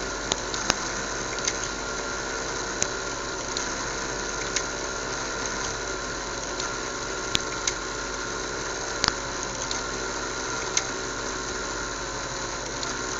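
Small fischertechnik DC motors spinning propellers, a steady electric whir held at one pitch, with occasional sharp clicks scattered through it.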